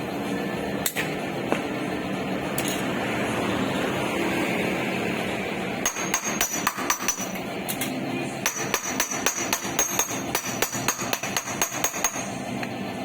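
A hammer striking steel car-body sheet metal in panel-beating repair work: a few separate blows, then about halfway through a quick run of ringing taps, roughly four a second, with a short pause partway.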